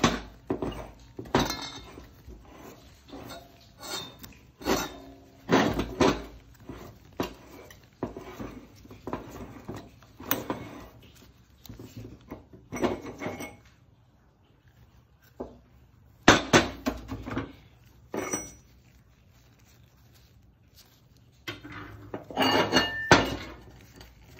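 Metal parts of a John Deere Gator CVT drive clutch knocking and clinking as the clutch is taken apart by hand. The knocks are irregular, with a quieter stretch a little past the middle, and a few near the end ring briefly.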